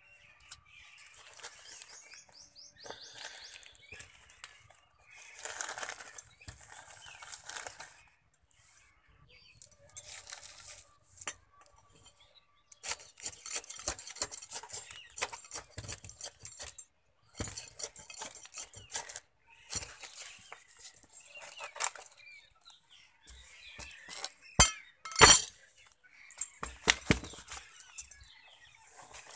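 Rustling, scraping and clicking of hands pressing potting soil into a cut plastic bottle planter, with the plastic crinkling and handling noise. Two sharp knocks near the end are the loudest.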